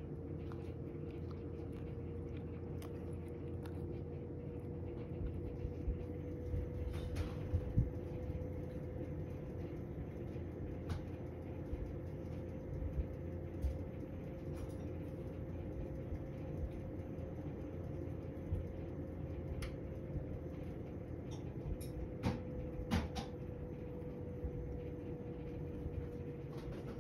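A cat crunching dry kibble from a ceramic bowl, heard as scattered small crunches and clicks, most of them in the first third, over a steady background hum.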